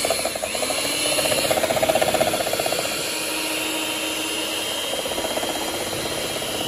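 Electric mixer running steadily, its beater churning liquid turmeric soap batter in a bowl.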